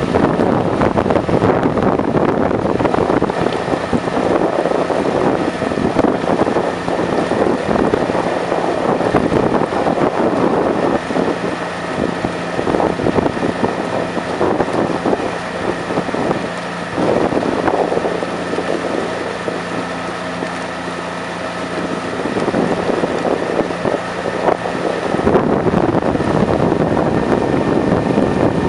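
A boat's outboard motor running steadily, with wind rushing over the microphone. The motor's low hum drops away near the end.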